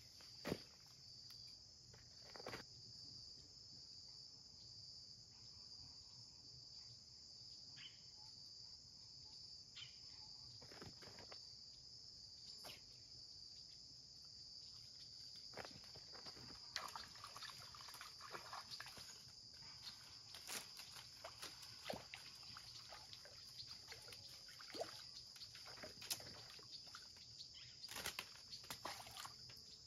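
Steady high-pitched chirring of insects, with scattered faint clicks and knocks that come more often in the second half.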